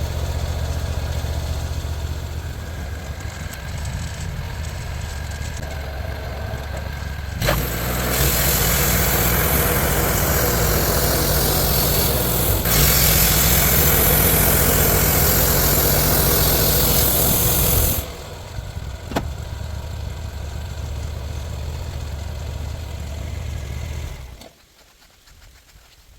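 Sawmill's engine running while the band blade cuts through a log: a steady engine hum, then for about ten seconds a much louder hiss of the blade in the wood. After that the engine runs quieter again, and the sound drops off sharply near the end.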